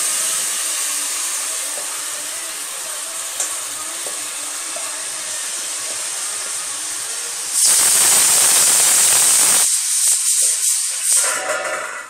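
Hot ghee and fried onions in a pressure cooker sizzling steadily as soaked rice is tipped in from a steel bowl. About two-thirds of the way through the sizzle briefly gets much louder, then gives way to a few scrapes and short bursts of sizzling.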